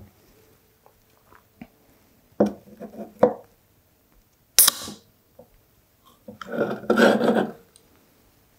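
Aluminium can of carbonated soft drink being handled with a couple of light knocks, then its ring-pull cracked open with a short sharp pop and hiss of escaping gas about four and a half seconds in, followed by more rustling handling of the can.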